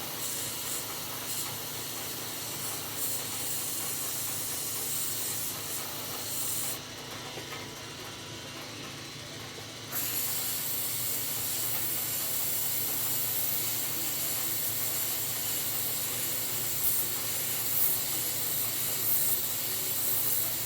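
Aerosol can of CRC Freeze Off penetrant spraying onto rusted exhaust flange nuts in long hissing bursts. It is one stretch of spraying, a pause of about three seconds about a third of the way in, and then a second, longer stretch.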